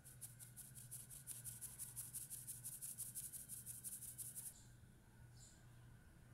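Flour being sifted through a handheld wire-mesh sieve: a faint, rhythmic rasping at about six strokes a second as the sieve is shaken over the bowl, stopping about four and a half seconds in.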